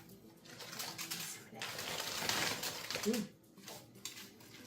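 Seafood mix of mussels and squid being tipped into a pan, shells clattering and clinking against it, with a brief hum from a voice about three seconds in.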